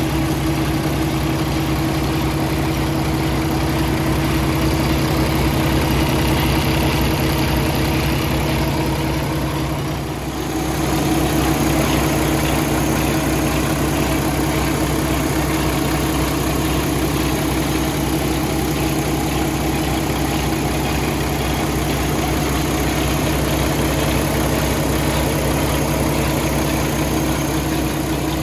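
2017 Peterbilt 567 tractor's engine idling steadily, heard up close with the hood open. About a third of the way in the sound dips briefly, and after that its tone changes slightly.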